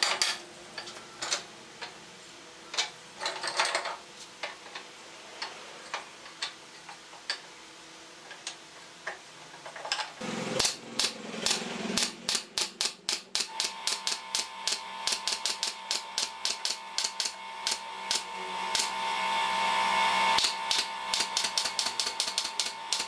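Wooden slats knock and clack as they are set in place. About halfway through, a pneumatic brad nailer starts firing into them in quick succession, about three shots a second, over a steady whine.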